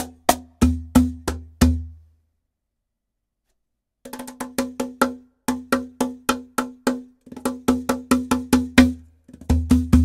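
Meinl Turbo Slaptop lap cajon with a walnut top, played with bare hands: a groove of deep bass tones and sharp slap tones. It stops about two seconds in and, after two seconds of silence, starts again with quicker strokes.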